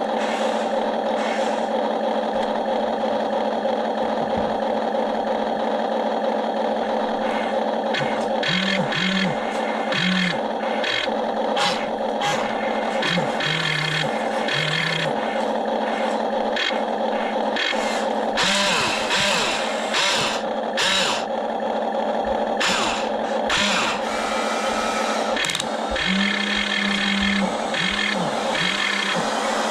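Toy RC excavator's electric motors running with a steady whine. From about eight seconds in, the pitch changes in short steps as the arm and bucket move. Clattering clicks of plastic Lego bricks being scooped and dropped join in.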